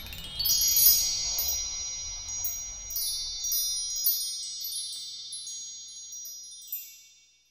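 Chime sound effect: many high, tinkling bell-like notes ringing over one another. They swell about half a second in, then slowly fade out near the end.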